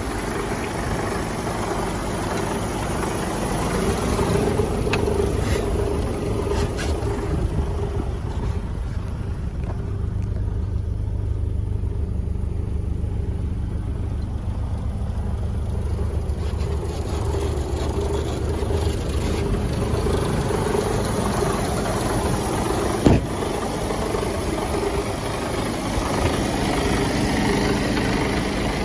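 Mercedes Actros 1845 tractor unit's diesel engine idling steadily, more muffled for a few seconds in the middle, with one sharp knock about two-thirds of the way through.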